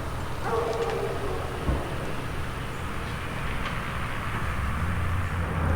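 A truck's engine running with a low rumble that grows louder toward the end, with a hound giving a short whine about half a second in and a single thump shortly after.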